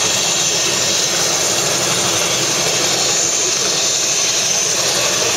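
Helicopter's turbine engine and main rotor running steadily on the ground, a loud continuous turbine hiss and whine.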